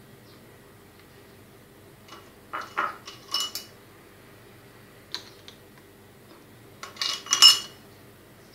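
Hard plastic clicks and clatter as the stick-lids of a plastic ice-pop mould are pressed into place: a cluster of sharp clicks about three seconds in, a single click a little past five seconds, and a louder cluster near the end.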